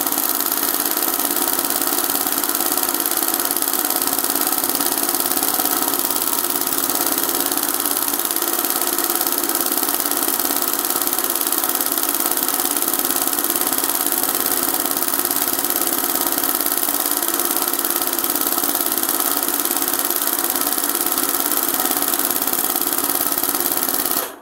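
Hand-guided embroidery machine running at a steady speed while stitching gold thread into satin: a continuous mechanical whir. It cuts off suddenly at the very end.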